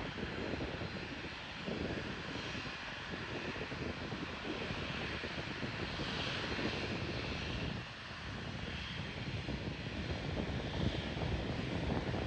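Airliner engines running at low taxi power: a steady rumble and hiss, dipping briefly about eight seconds in.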